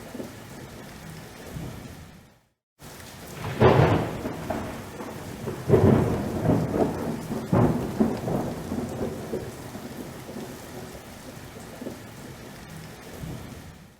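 Thunderstorm: steady rain, then a loud thunderclap a few seconds in, followed by rolling rumbles with two more cracks before it eases back to rain. Just before the first clap the sound cuts out to silence for a moment.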